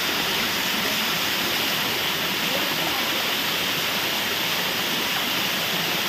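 Waterfall pouring down a steep rock face and splashing onto the rocks below: a steady, even rush of falling water.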